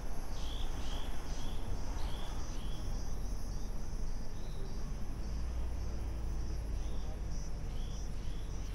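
Insects chirring in a steady pulsing drone, with short repeated chirps, over the low rumble of a vehicle driving along the road.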